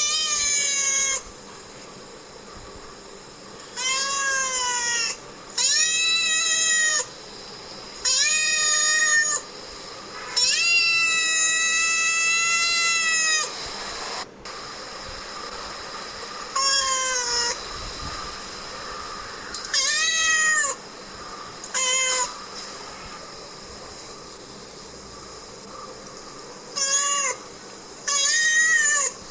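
Domestic cat meowing again and again: about ten separate meows, most about a second long, with one drawn-out meow of about three seconds in the middle. Each meow drops in pitch at its end.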